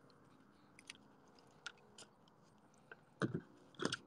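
Quiet handling sounds: a few faint scattered clicks, then two brief louder scuffs or knocks near the end, as of plastic parts or the phone being handled.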